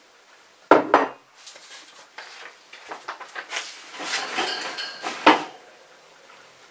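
A table knife knocking, scraping and clinking against a plate and toast at a breakfast table. There is a sharp knock under a second in, a run of scrapes and clicks after it, and another loud knock just after five seconds.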